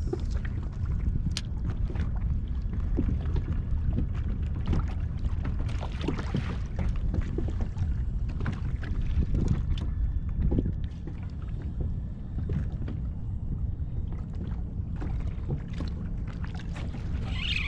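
Kayak afloat on open water: water knocking and lapping against the plastic hull, over a steady low rumble with scattered short knocks.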